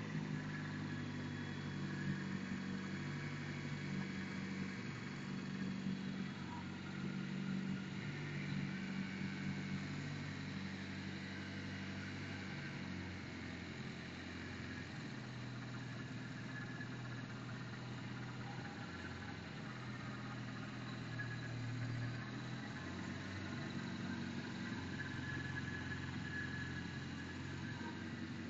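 Freshly rebuilt Cosworth engine idling on its first start-up, its idle speed stepping slightly up and down every few seconds.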